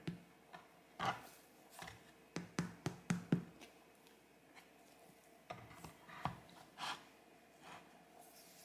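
Fingers tapping and knocking on the hard crust of a baked rye sourdough loaf resting on a wooden cutting board: short dull knocks, with a quick run of about five in a row a little after two seconds in, and more scattered knocks later as the loaf is handled and shifted on the board.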